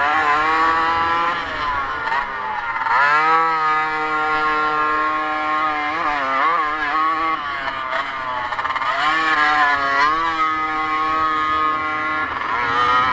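Motocross bike engine at racing revs: the pitch climbs, holds high for a second or two, then briefly drops and climbs again, about four times as the throttle is opened and shut.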